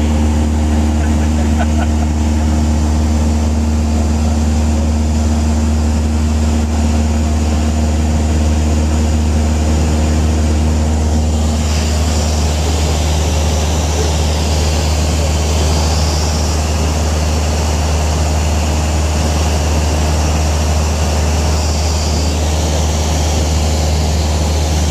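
Light propeller airplane's engine and propeller droning steadily, heard from inside the cabin in cruising flight. The tone shifts about halfway through, with more hiss in the upper range.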